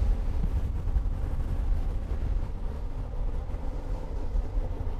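Fishing boat running at speed under outboard power: a steady engine drone mixed with rushing water from the wake and heavy wind buffeting on the microphone.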